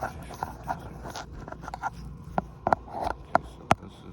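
Irregular clicks and short scrapes of handling close to a phone's microphone, about a dozen sharp ticks at uneven spacing over a faint low rumble.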